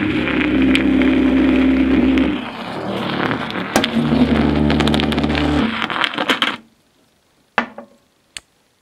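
Homemade mechanical disc recorder, a small loudspeaker mounted over a spinning plastic disc, giving a loud scratchy, crackling noise with steady low hum-like tones that shift twice. The noise cuts off abruptly about six and a half seconds in, followed by a few sharp clicks.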